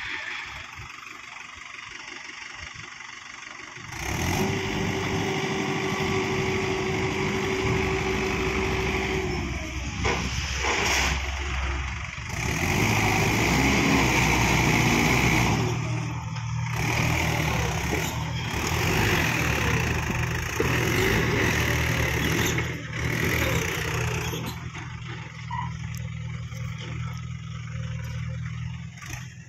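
Tractor diesel engine running, picking up loudly about four seconds in as the hydraulics raise the loaded tipping trailer, with a steady whine for several seconds. Soil then rushes out of the tipped trailer bed for a few seconds, and the engine runs on steadily.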